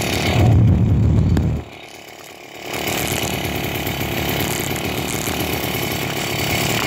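Small 80cc two-stroke bicycle engine running: loud for the first second and a half, dropping off briefly, then running steadily from about three seconds in as the bike rides.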